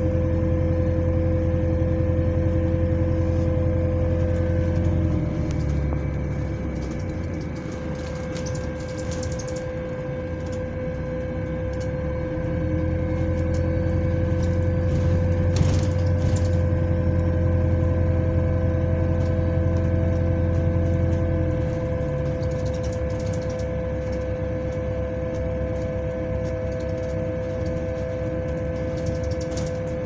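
Inside a moving bus, a steady, high-pitched mechanical whine that the rider takes for an odd fan noise. A deeper drivetrain hum comes in for the first five seconds and again from about twelve to twenty-one seconds in, with a few light rattles.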